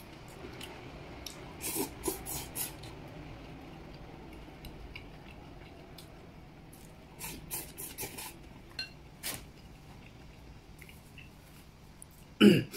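A person slurping youpo mian (oil-splashed wheat noodles) in two bursts of quick, sharp slurps, the first about a second in and the second about seven seconds in.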